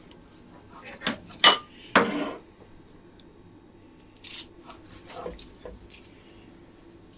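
Kitchen utensils knocking and clinking, a knife on a chopping board or tray while dough is sliced, in about half a dozen separate knocks, the loudest about one and a half seconds in.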